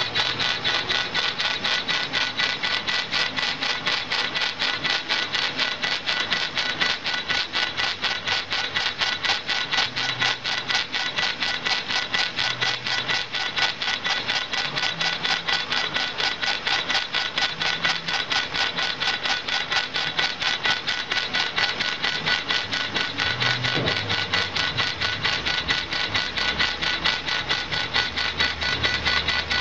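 CO2 laser engraving machine rastering its laser head back and forth across a crystal glass piece: rapid, even ticking with a steady high whine from the drive motors. A low hum joins near the end.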